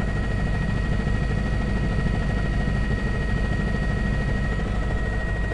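Steady drone of a helicopter heard from inside its cabin, with a fast low beat underneath and a thin steady whine.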